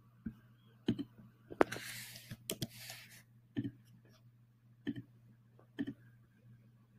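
Computer mouse clicking, single sharp clicks about once a second, with a short soft hiss about two seconds in.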